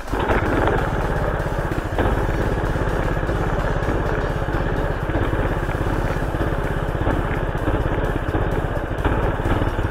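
Minibike's small gas engine, its governors removed, running steadily with a fast even firing pulse.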